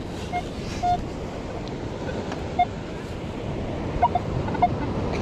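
Surf and wind noise on an open beach, with several short, clean beeps from a Minelab Equinox metal detector sounding off on a target.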